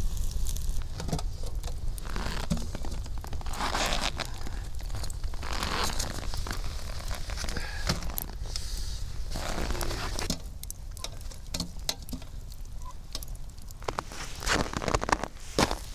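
Wood campfire crackling and popping with many sharp snaps, with a few longer hisses rising and fading.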